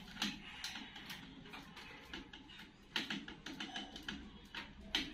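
Scattered clicks and taps of hands working at a plastic MCB distribution box, with three louder knocks: one just after the start, one about three seconds in and one near the end.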